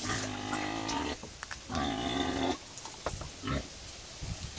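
Pigs calling at feeding time as feed is poured into their trough: two long pitched calls in the first half and a short one about three and a half seconds in.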